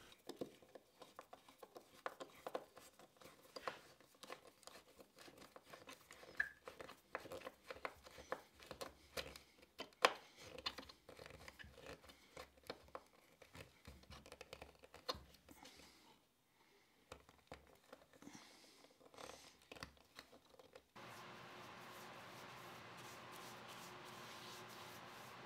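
Faint scratching, creaking and clicking of wood screws being turned by hand with a screwdriver into a cherry batten, in short irregular bursts. About 21 seconds in this gives way to a steady faint hiss with a low hum.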